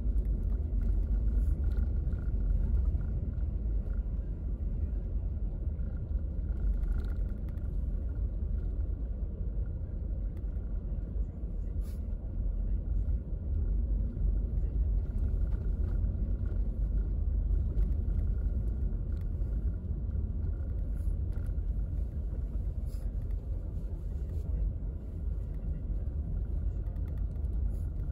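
Car cabin noise while driving slowly on a snow-covered road: a steady low rumble from the tyres and engine, with a few faint clicks.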